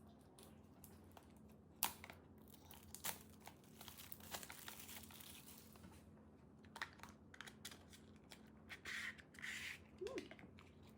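Packaging being crinkled and torn open by hand, with scattered light handling clicks and a longer stretch of crinkling in the middle and near the end.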